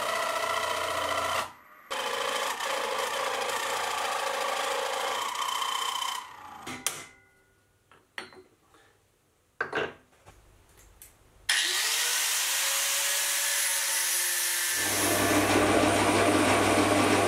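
Milling machine cutting into a steel block with a coated cutter, a steady cutting noise. After a quiet stretch with a few clicks of the tool being handled, the spindle starts with a rising whine, and a large end mill plunges into the steel near the end with a louder, deeper cutting sound.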